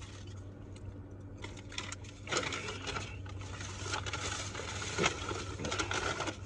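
Paper takeout bag rustling and crinkling as a hand rummages inside it, starting about a second and a half in, over a steady low hum.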